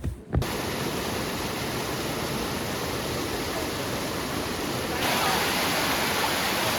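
Waterfall rushing in a steady roar of falling water. It cuts in suddenly about half a second in and jumps louder about five seconds in.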